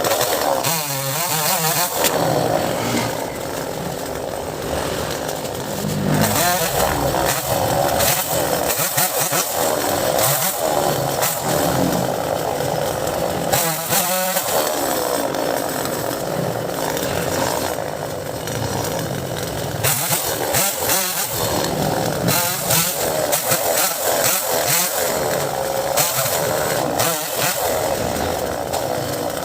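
Two-stroke chainsaw running hard, revving up and dropping back for a moment several times, as when limbing and cutting through mango branches.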